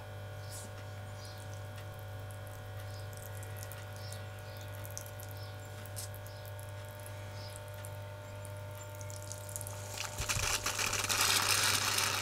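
A steady low electrical hum with a few faint ticks. About ten seconds in, a louder rushing, spluttering sound starts as nitro fuel is drawn out of an RC truck's plastic fuel tank through a thin tube.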